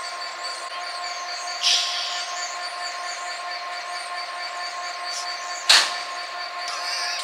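Class 66 diesel-electric locomotive, with its EMD twelve-cylinder two-stroke engine, standing and idling with a steady mechanical whine. A short hiss comes about one and a half seconds in, and a sharp clunk near the end is the loudest sound.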